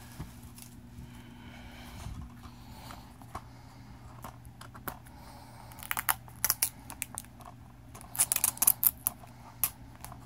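Plastic shrink-wrap on a DVD case being torn and peeled off, crinkling in sharp crackly clusters about six seconds in and again around eight to nine seconds in.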